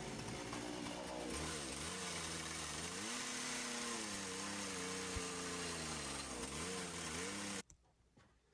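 Two-stroke carving chainsaw with a dime-tip bar running, revving up and down repeatedly as it carves wood. It cuts off about three-quarters of a second before the end.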